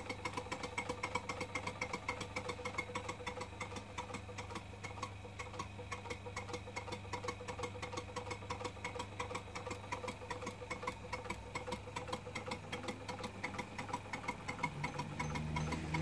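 Model Minnie traction engine's single-cylinder engine running on test, its motion ticking in a fast, even beat of several clicks a second over a steady low hum.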